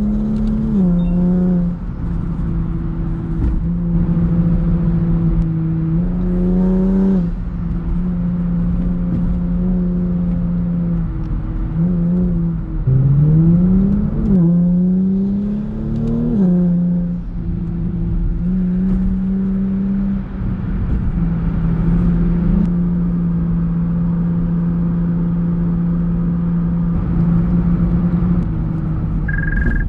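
Kia Stinger GT's twin-turbo V6 engine and exhaust heard from inside the cabin while driving: a steady drone at cruising speed. Twice the pitch climbs as the car accelerates and then drops back, briefly about six seconds in and again between about twelve and seventeen seconds.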